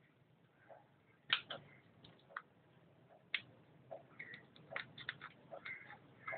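Scattered light clicks and ticks at irregular intervals, starting about a second in, over faint room tone.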